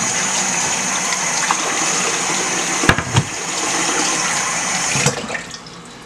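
Kitchen tap running into a sink as a cutting board is rinsed, with two knocks about three seconds in. The water shuts off about five seconds in.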